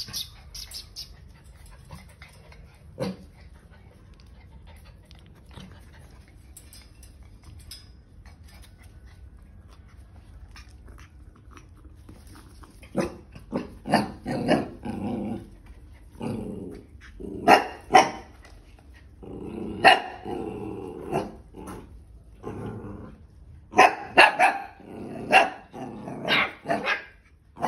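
Dog barking in short bursts, mixed with growling; the barking starts about halfway through and comes in quick runs toward the end.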